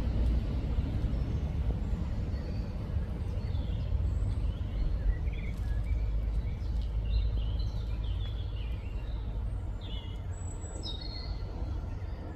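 Songbirds chirping and singing in short scattered calls, more of them in the second half, over a steady low rumble.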